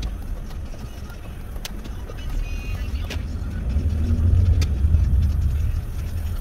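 Road and engine rumble heard inside a moving car's cabin, a steady low drone that grows louder about halfway through, with a few faint clicks.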